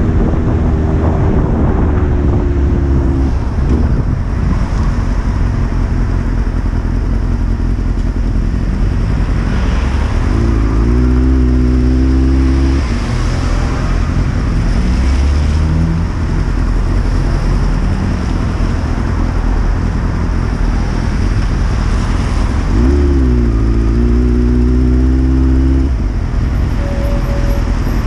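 Honda CBR600 motorcycle's inline-four engine ridden at low speed, pulling up in pitch twice, about ten seconds in and again near the end, and easing off in between, over a steady rush of wind and road noise.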